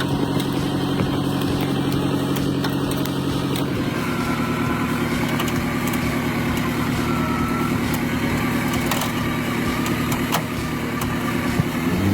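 A machine engine running steadily, its tone shifting about four seconds in, with a faint high whine after that.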